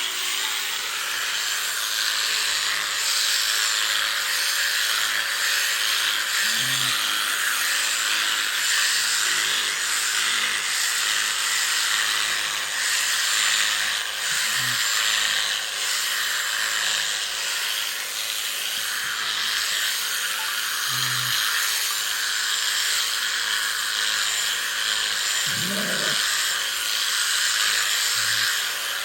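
Electric sheep-shearing clipper running steadily with a high buzzing hiss as it cuts through the fleece, interrupted now and then by short low sounds, one of the longer ones about 26 seconds in.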